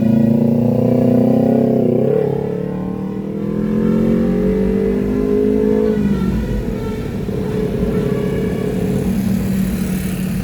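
Road vehicle engine running and accelerating: its pitch rises for a couple of seconds, drops back about six seconds in, then runs on steadily.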